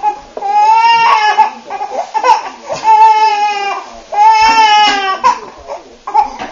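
Baby crying hard: a series of about four long, high-pitched cries, each about a second long, with short breaks between them.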